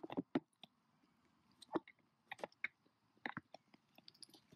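Female mallard pecking seed off a plastic tub lid: irregular clusters of sharp clicks and taps as its bill strikes the hard plastic.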